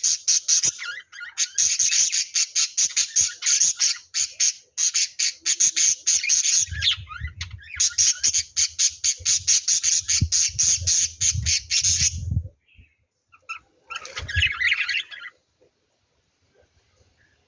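Lovebirds chattering in a fast, shrill run of sharp chirps and squawks, with a low rumble underneath in the later part. The calling stops about twelve seconds in, and after a pause one short burst of chirps follows.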